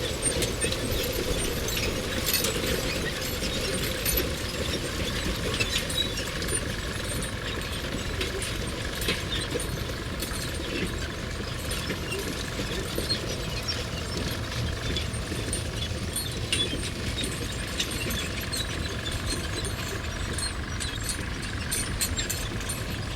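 Sound-effect bed of metal clinking and rattling, many small scattered clicks over a steady low rumble, with a faint steady high hum coming in about six seconds in.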